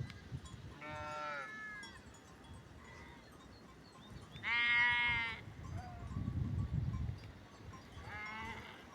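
Sheep bleating: three separate calls, the loudest about halfway through, with a low rumble between the second and third.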